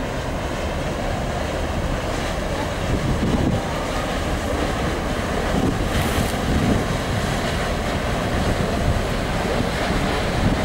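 Wind buffeting the microphone over the steady rush of water from a passenger ferry's bow wave and wake as it passes close by.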